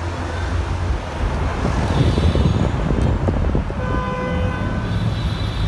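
Cars driving past with a steady low engine and exhaust rumble; a car horn sounds for about a second around four seconds in.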